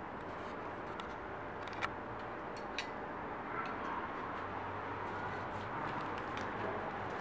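Steady low hum and background noise, with two light clicks about two and three seconds in as a metal sheet is handled between a spot welder's electrode arms.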